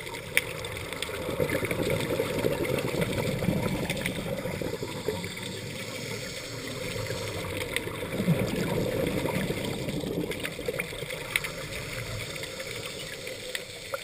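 Underwater sound of a scuba diver breathing through a regulator: two long rushes of exhaled bubbles, one starting about a second in and one about eight seconds in, over a steady watery wash with scattered sharp clicks.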